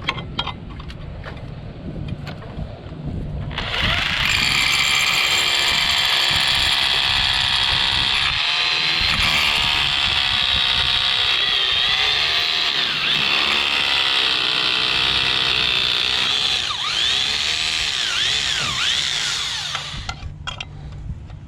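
Power drill running under load for about sixteen seconds, starting about four seconds in. Its high whine wavers in pitch and dips several times near the end as the bit bogs.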